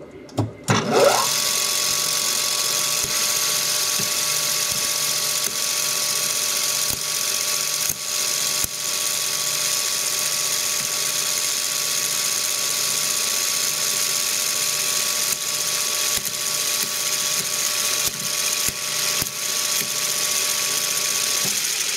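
Lathe spinning up, then running at speed while 3D-printed plastic bevel gears, one locked by a bolt so it cannot turn, grind against each other with a loud, steady hiss and whine as the plastic is shredded. The lathe winds down at the very end.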